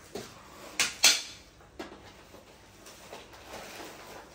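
Hard shoe-rack kit parts, rods among them, clinking and knocking against each other as they are handled: several sharp knocks, the loudest about a second in.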